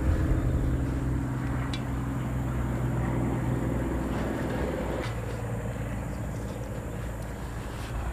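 An engine running steadily with a low hum, easing off slightly about five seconds in, with a few light clicks over it.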